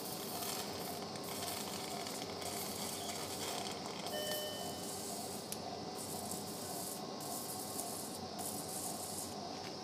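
Steady hiss of operating-room equipment during surgery, the highest part of the hiss coming and going, with a short electronic beep about four seconds in.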